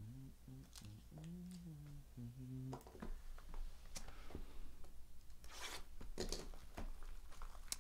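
Plastic wrap on a sealed trading-card box being handled and torn open: a few light clicks and taps, then from about five and a half seconds in a run of crackly tearing and crinkling that grows louder.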